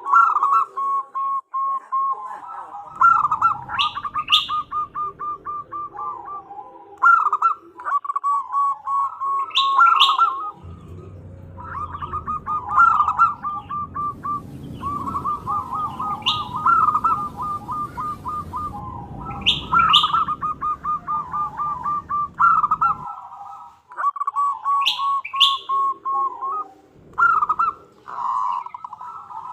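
Zebra dove (perkutut) calling in rapid pulsed, trilled cooing phrases repeated with short breaks: a female's call meant to draw a male. Short sharp high chirps come in now and then.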